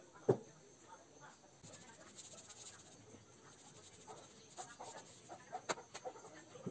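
A single sharp knock just after the start, then, from about four seconds on, faint scattered short clucking calls and a few light clicks.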